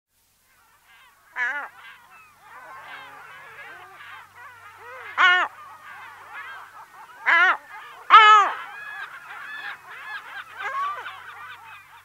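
A single lesser black-backed gull calling close up, four loud calls with the last two close together, over a busy background of many gulls calling in the colony.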